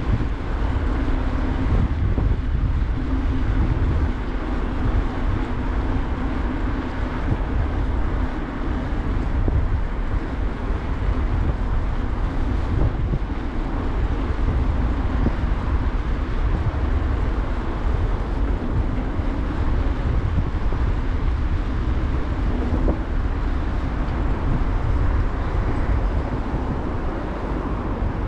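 Steady rumbling road noise of a bicycle ride on a city street: wind on the microphone and tyres on asphalt, with car traffic in the background.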